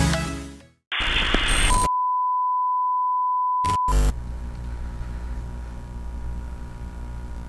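Electronic dance music fades out, then a TV test-pattern sound effect: about a second of static, a steady test-tone beep for about two seconds, a short crackle, and then a low hum with hiss.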